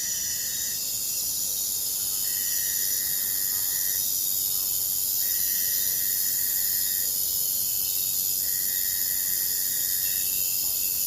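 Forest or jungle ambience: a dense, steady, high-pitched chorus of insects such as crickets. A separate held, even-pitched call repeats about every three seconds, each lasting about a second and a half.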